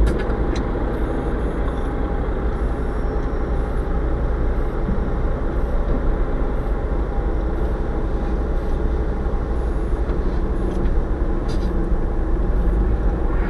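Steady engine and road rumble inside a car's cabin as it moves slowly through city traffic.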